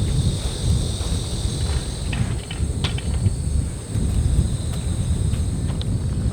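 Strong wind rumbling and buffeting against the microphone, with a steady high-pitched insect trill over it and a few light clicks in the middle.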